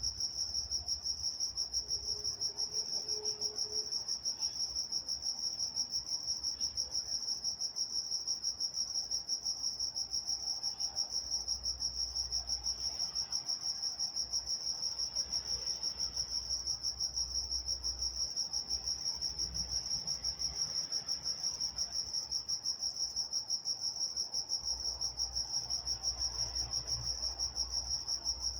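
Crickets chirping: a steady, high-pitched chirp repeating evenly and without pause, with a faint low rumble beneath it.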